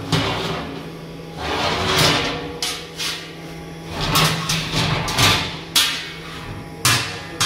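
Heavy round steel lid of an in-ground pit oven dragged across the concrete rim as the pit is closed, with two longer stretches of scraping and several sharp metallic clanks as it is knocked into place.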